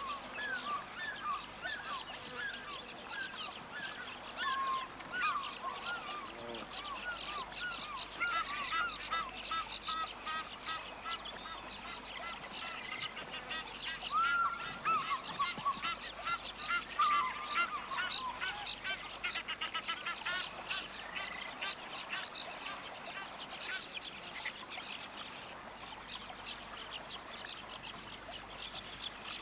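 A flock of waterbirds calling: many short calls overlapping in a dense chorus, loudest around the middle and thinning toward the end.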